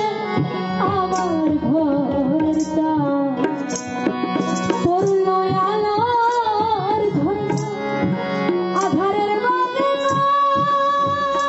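A Bengali song of separation: a sung, ornamented melody that bends and wavers over percussion and instrumental accompaniment, settling onto a long held note near the end.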